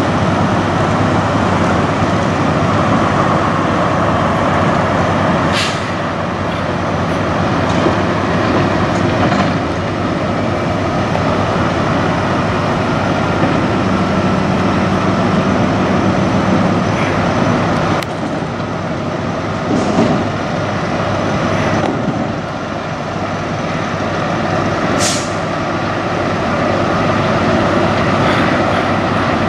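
Peterbilt semi tractor-trailer's diesel engine running as the truck pulls slowly past, with a couple of brief sharp hisses.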